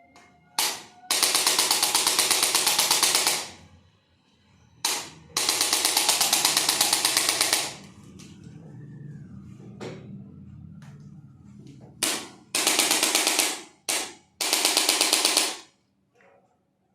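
Handheld electric percussion adjusting gun firing runs of rapid impacts, about eight a second. It fires two long runs of a little over two seconds each, then two shorter runs of about a second near the end, and each run is preceded by a brief single burst.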